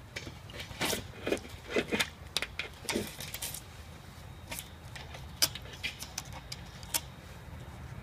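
Hand work on a water heater: a quick run of metallic clinks, rattles and short scrapes, then scattered single clicks, the sharpest about five and a half seconds in.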